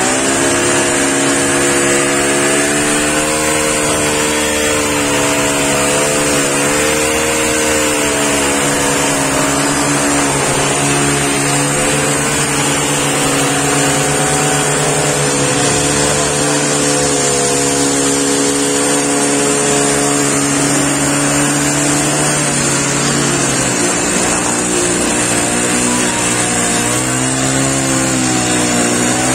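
Hand-held engine-driven ballast tamper running continuously, its tine vibrating in the track ballast as it packs the stones under a railway sleeper. The engine note holds steady with slight wavers in pitch, dipping and rising near the end.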